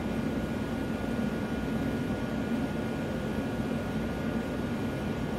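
Steady hiss and low hum with a few faint, steady high whine tones, unchanging throughout: background noise from the bench radio equipment.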